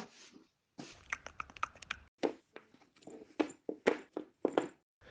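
An irregular series of sharp clicks and knocks, more than a dozen in a few seconds, some with a short ring.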